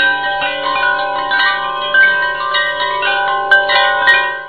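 Background music of bell-like chime notes, ringing and overlapping, with a new note struck about twice a second. It cuts off abruptly at the end.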